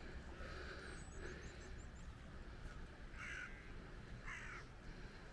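A crow cawing twice, two short harsh calls about three and four seconds in. A small bird's quick high chirps come just before, about a second in.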